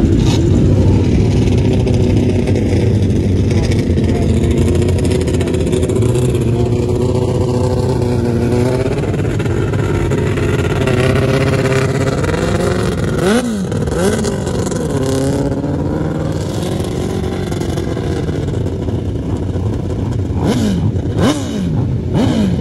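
Several 1000cc grasstrack sidecar outfits' engines running together at a steady, loud level, their notes overlapping. Riders blip their throttles, so engine pitch drops and jumps back up about two-thirds of the way in and twice more near the end.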